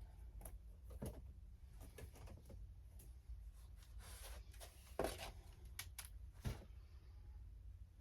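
Faint, scattered knocks and clicks of household items being handled and moved, over a low steady hum. The sharpest knocks come about five seconds in and again a second and a half later.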